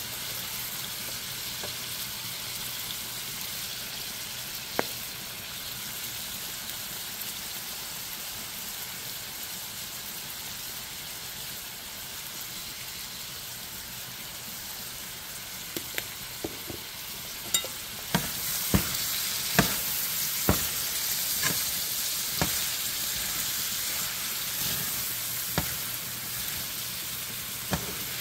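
Ackee and saltfish frying in a pan, a steady high sizzle that gets louder a little past halfway. In the second half a utensil clicks against the pan about once a second as the food is stirred.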